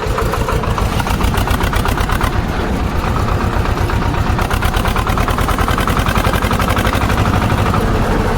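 Swaraj 724 tractor's two-cylinder diesel engine opened up under throttle, a fast, steady firing beat that gets louder at the start and then holds. The engine is being worked hard to blow smoke from the exhaust.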